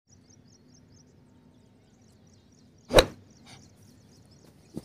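One loud, sharp smack about three seconds in, then two quick thumps close together near the end, over faint high chirping.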